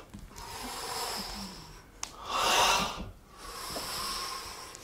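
A man breathing deeply and audibly: long drawn breaths, with one louder, forceful blowing exhalation about two seconds in.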